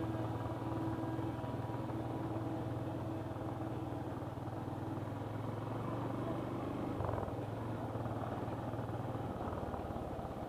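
Motorcycle engine running steadily as the bike is ridden along a rough, broken road.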